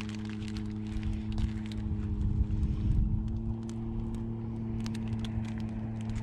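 Steady low motor hum with a faint rise in pitch about three seconds in. Wind buffets the microphone with a deep rumble around two to three seconds in, over a few light clicks.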